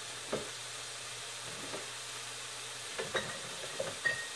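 Onion and garlic sizzling steadily in a frying pan. Several short knocks and clinks come over it, about a third of a second in and again in a cluster from about three seconds in, with a brief high squeak just before the end.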